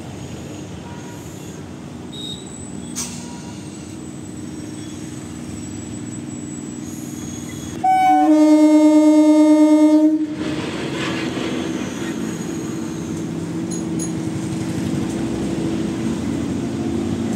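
EMU local train approaching and running past, its running noise growing louder. About eight seconds in, it sounds its horn in one steady blast of about two seconds, the loudest sound, after which the rolling noise of the coaches carries on.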